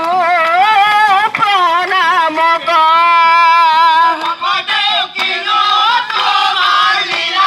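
A song played loud through a loudspeaker box: one singer's wavering melody, with a long held note about halfway through.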